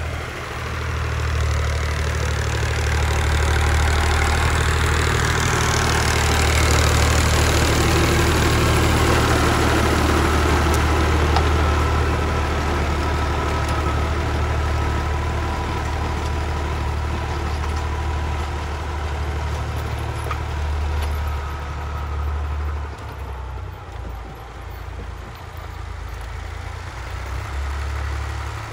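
Diesel tractor engine running steadily while driving a rear-mounted rotary tiller through its PTO shaft, a low drone with a thin steady whine over it. It grows quieter about three quarters of the way through as the tractor moves off.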